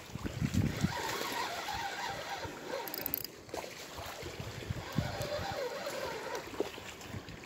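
Wind rumbling and buffeting on the microphone over the wash of river water at the bank.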